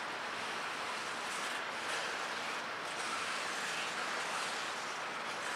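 Intermodal freight cars carrying highway trailers rolling past on a Florida East Coast Railway train. Their wheels on the rails make a steady noise.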